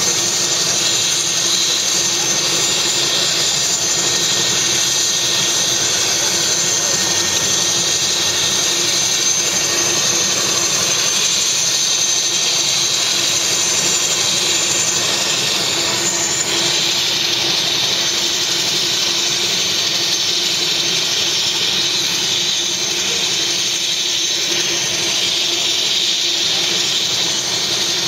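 Helicopter's turbine engine running steadily on the ground, a constant high whine and hiss with the rotor turning, while the helicopter sits parked on the pad.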